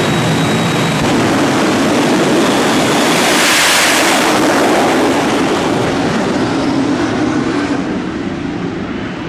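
Twin jet engines of a jet-powered 1957 Chevy truck running at full power with afterburners lit during a drag-strip pass. A loud, steady rushing noise, with a thin high whine in the first couple of seconds, swells as the truck goes past about three to four seconds in, then fades as it runs away down the track.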